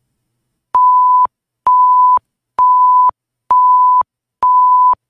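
Electronic countdown-timer beeps: five identical steady high tones, each about half a second long, at about one per second, timing the answer period.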